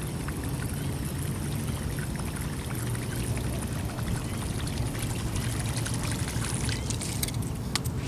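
Steady low rumble with a watery, pouring hiss and scattered light ticks, as a topwater frog lure is worked across shallow, grassy water; a few sharper clicks come near the end.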